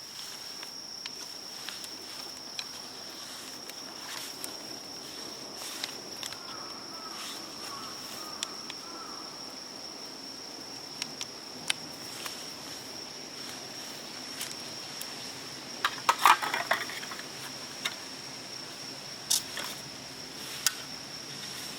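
An insect calling steadily on one high, unbroken pitch, with scattered light clicks and handling rustles over it and a louder clatter of knocks about two-thirds of the way through.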